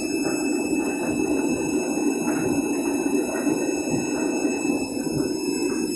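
Candy Grand'O Vita washing machine running empty, its drum turning with a steady whirring hum.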